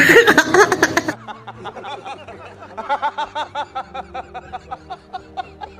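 Loud laughter and voices for about a second, then, after an abrupt cut, men laughing hard in a run of short, rapid chuckles, about three or four a second.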